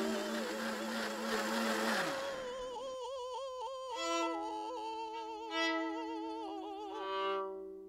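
Music: operatic-sounding singing with heavy vibrato, several wavering held notes. It starts under a steady hiss and hum that fade away about two seconds in, then comes through clearly and cuts off abruptly at the end.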